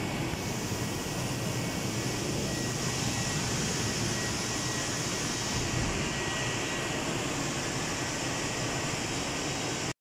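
Steady machine whir and hiss of a roll printing line for membrane switch keypad circuits running, with no distinct strokes or rhythm.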